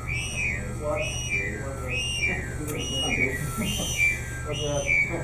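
A high tone rising and falling over and over, about one and a half times a second, over a steady low hum.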